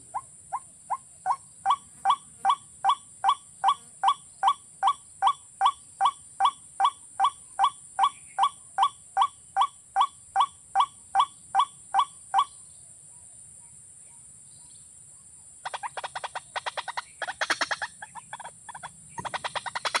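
A rail calls a long series of short, evenly spaced notes, about two and a half a second, each sliding slightly upward, for about twelve seconds. From about sixteen seconds in come two bursts of rapid flapping and scuffling, as a bird beats its wings at the noose trap.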